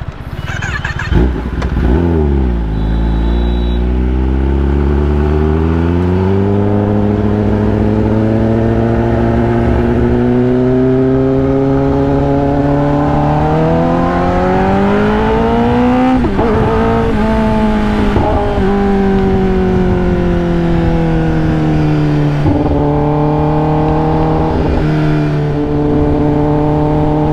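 Kawasaki ZX-10R's inline-four through an SC-Project aftermarket exhaust, pulling away and accelerating hard, its note climbing steadily for about fourteen seconds. A brief sharp dip comes about sixteen seconds in, then the note falls away and settles to a steadier, lower cruise. A single knock is heard about a second in.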